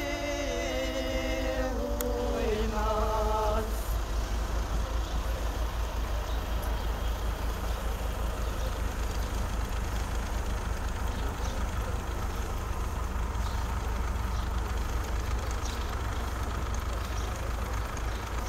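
Unaccompanied funeral chant by a few voices ending about three and a half seconds in, then a steady low vehicle engine rumble, the sound of a van creeping along with a procession on foot.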